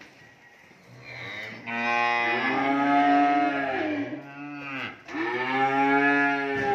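Young cattle mooing: two long, loud moos back to back, the first beginning about a second in after a low hum, each rising and then falling in pitch.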